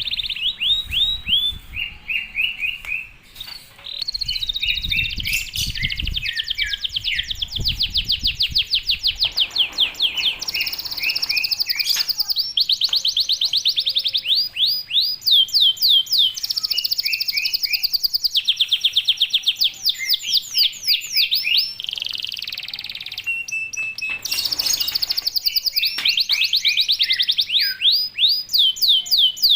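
Domestic canary singing in long, rapid trills of quickly repeated high notes, one phrase running straight into the next. A low rumble sits underneath for the first several seconds.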